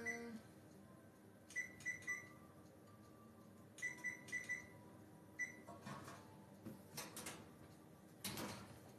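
Kitchen appliance keypad beeping as its buttons are pressed: three quick beeps, then four, then one more. A few light knocks and clatter follow in the second half.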